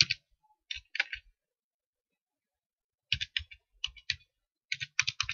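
Computer keyboard being typed on: a few quick keystrokes near the start, a pause of about two seconds, then fast runs of keystrokes again.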